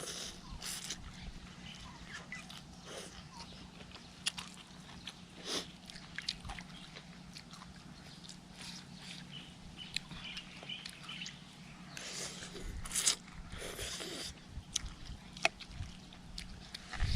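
A person eating noodle soup: quiet chewing with scattered small clicks and a few short noisy bursts, busiest about twelve seconds in, over a low steady hum.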